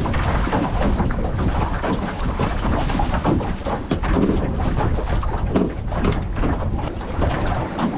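Wind buffeting the microphone over the rush and slap of water against the hull of a small boat running at speed.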